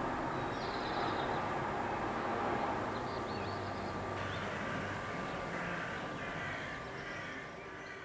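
Outdoor city ambience with crows cawing a few times over a steady background hiss. It fades out near the end.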